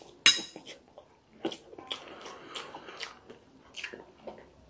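Chewing and slurping of instant noodles with scattered short mouth clicks, opened by one sharp, loud click just after the start.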